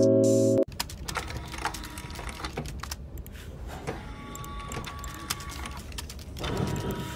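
A keyboard-music phrase cuts off about half a second in. It gives way to a run of soft, irregular keyboard-typing clicks over a faint hiss, which get a little louder near the end.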